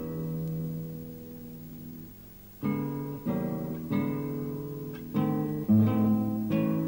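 Background music on acoustic guitar: a chord rings and fades, then from about two and a half seconds in a run of strummed chords.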